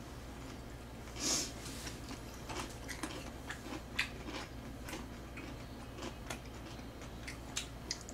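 Close-up eating sounds of tteokbokki being eaten with chopsticks: irregular small clicks of the chopsticks against the tray and wet chewing and mouth smacks, with one louder wet sound about a second in.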